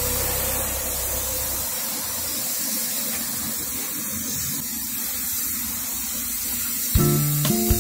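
Compressed-air paint spray gun hissing steadily as paint is sprayed onto a car body. Background music with plucked notes comes back in about seven seconds in.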